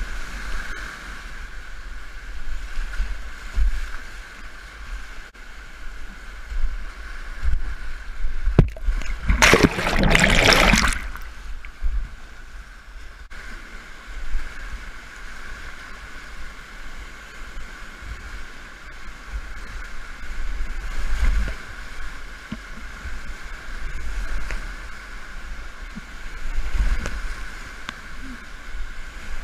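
Whitewater rapids rushing steadily around a kayak, with rumbling bursts of water striking the boat and the camera. One loud splash comes about ten seconds in, lasting a second or so.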